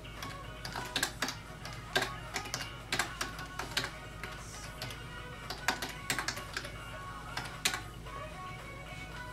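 Keys clicking on a computer keyboard, typed in irregular runs of sharp clicks, with music playing underneath.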